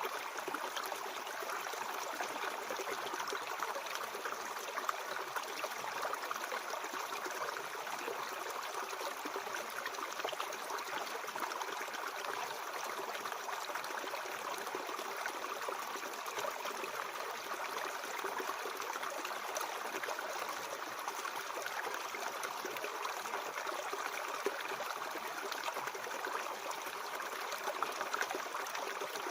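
Mountain stream flowing steadily, a continuous even rush and burble of water over rocks.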